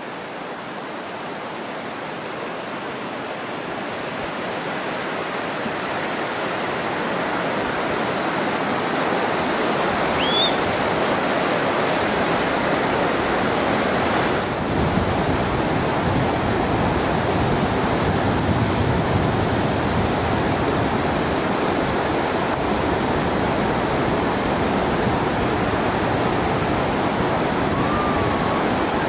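Ocean surf breaking on a sandy beach: a steady rushing wash of waves that grows louder over the first ten seconds or so, then holds.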